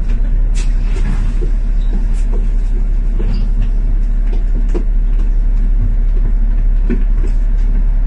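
Steady low rumble of city traffic with double-decker buses, scattered with short clicks and knocks.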